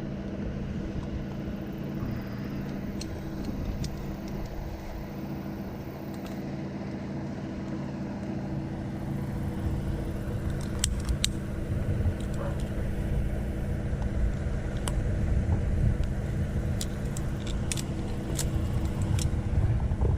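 Engine of a brush chipper running steadily in the background, a little louder in the second half, with scattered sharp clicks throughout.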